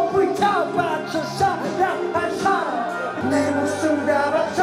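A man singing into a microphone over instrumental backing music, karaoke-style.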